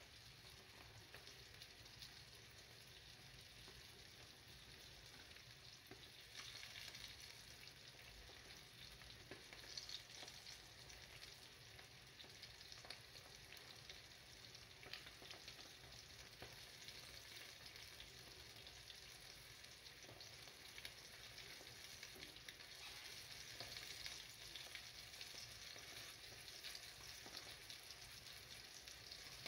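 Flour-dusted sole fillets sizzling in oil in a frying pan: a faint, steady crackle of frying that swells a little now and then.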